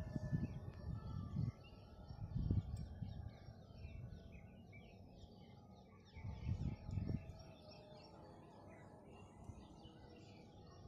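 Small birds chirping faintly in the background, many short calls throughout, with a few brief low rumbles, one near the start, one about a third of the way in and one past the middle.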